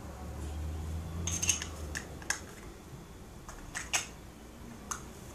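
Makeup containers being handled: a few short, sharp plastic clicks and taps spread over several seconds, with a low hum during the first two seconds.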